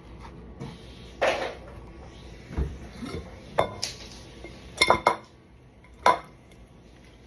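Metal spoon scooping out the middle of a melon: a few irregular scrapes and sharp clinks of the spoon, spaced about a second apart.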